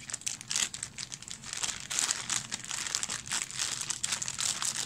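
Clear plastic packaging bags crinkling as they are handled, a continuous run of sharp crackles.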